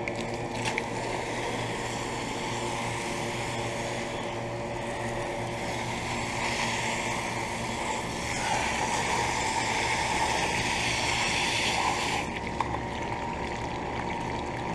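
York central air conditioner's outdoor unit running with a steady hum, under a rushing hiss that swells about six seconds in and cuts off abruptly about twelve seconds in.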